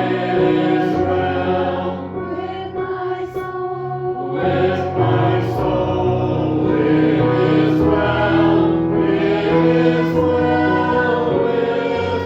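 A hymn sung by a group of voices with instrumental accompaniment, in slow held chords with a sustained bass line.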